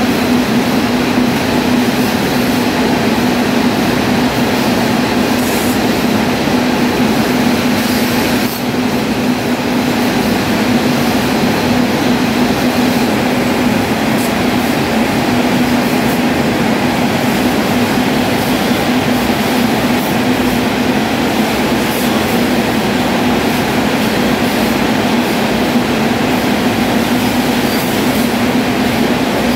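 A row of Muratec 21C automatic cone winders running: a loud, steady mechanical drone with a constant hum and faint clicks now and then.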